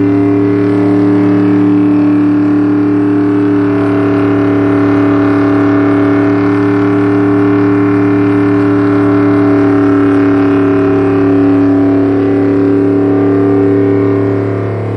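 Volkswagen's engine held at steady high revs during a burnout, the wheels spinning in place; one unbroken, unchanging engine note.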